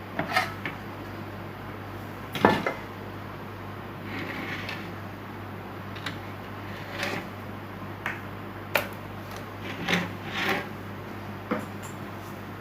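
Irregular clicks, knocks and short scrapes of a plastic set-top box being handled and worked on, the loudest knock about two and a half seconds in, over a steady low hum.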